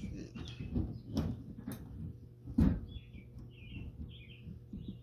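Knocks and clunks of metal parts being handled while a fuel sending unit is fitted to a fuel tank. The loudest knock comes about halfway through, and a run of four or five short high chirps follows near the end.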